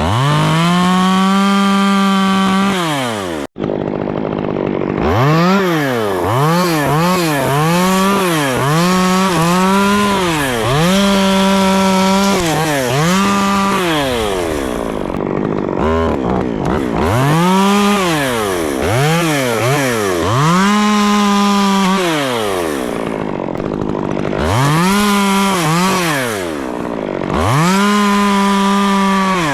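Stihl chainsaw repeatedly revving up to full throttle, holding, and dropping back to idle as it cuts limbs off a white fir. The cuts are taking back weight off the top before it is felled. The sound cuts out completely for an instant about three and a half seconds in.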